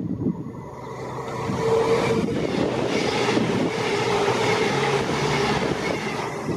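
Class 221 Super Voyager diesel-electric train passing close at speed: the steady hum of its diesel engines under the rush of wheels on rail. The sound builds about a second and a half in and stays loud until near the end.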